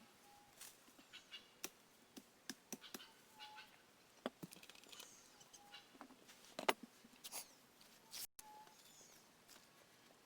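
Faint scattered clicks and knocks, with a short high chirp repeating every two to three seconds.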